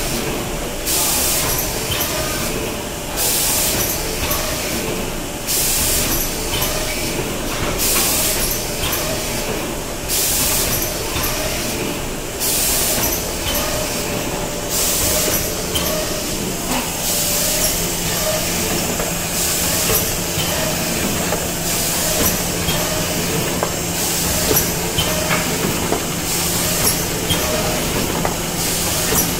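Automatic book-cover case-making machine running, with hissing blasts of compressed air from its pneumatic system every one to two seconds over the steady clatter and hum of the mechanism.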